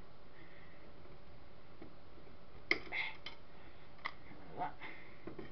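A few light clicks and taps of a hand tool and small parts being worked inside a metal CCTV camera housing, bunched about halfway through, over a steady hiss.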